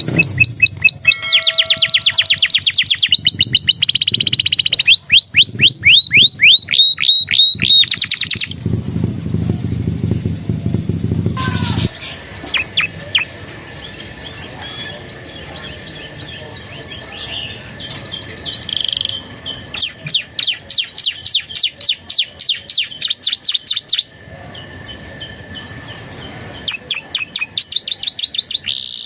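Domestic canary singing in fast repeated sweeping notes, several a second, in long rolling runs. It is loud for the first third, softer and broken in the middle, then loud runs come back.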